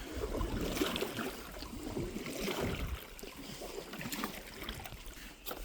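Canoe paddle strokes dipping and splashing in pond water, swelling and fading with each stroke.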